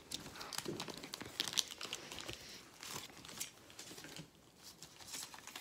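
Light crinkling and rustling of football trading cards and their pack wrapper being handled, a scatter of short crackles that thins out near the end.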